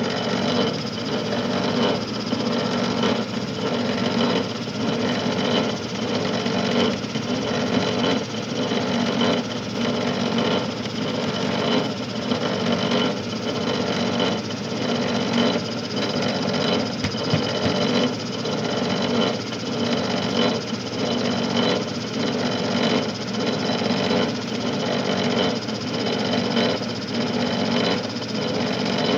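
Homemade coil-winding machine running steadily: a VW Beetle generator driving a gear reducer, with a pulse a little more than once a second. The reducer's crown gears growl inside, which the owner puts down to the gears.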